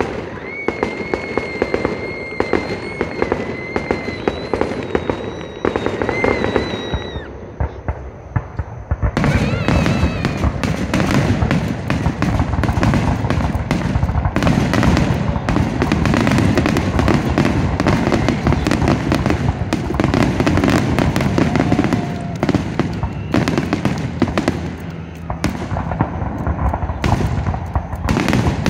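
Fireworks going off: many bangs and crackles in quick succession, densest from about nine seconds in. In the first seven seconds a high steady tone sounds over lighter pops.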